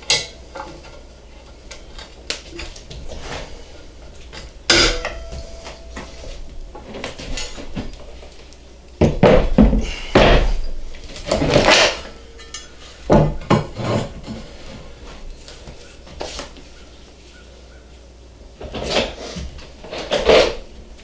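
Metal parts and tools clinking and clattering as they are handled, in scattered bursts with a few sharp knocks, the busiest stretch about halfway through.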